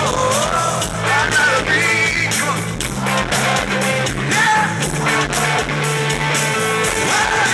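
Live rock band playing loud electric rock: electric guitar, bass and drums with cymbal hits under a male lead vocal sung into a handheld microphone.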